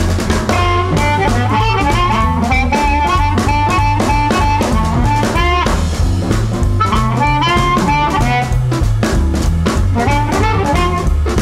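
Blues band recording in an instrumental stretch: a lead melody with sliding, bent notes over a bass line and drums.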